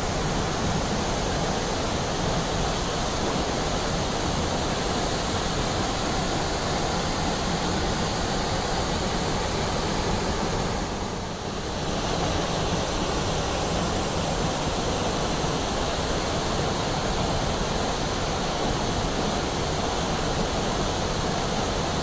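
Kapila Theertham waterfall's steady rushing noise, with a brief dip in level about halfway through.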